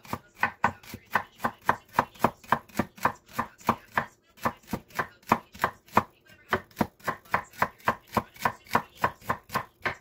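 A broad-bladed kitchen knife slicing fresh celery stalks on a wooden cutting board: a steady run of about four chops a second, with a short break about four seconds in.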